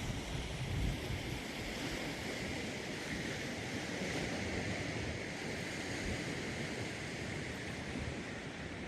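Steady outdoor rushing noise with a faint even hiss. Wind buffets the microphone during the first second.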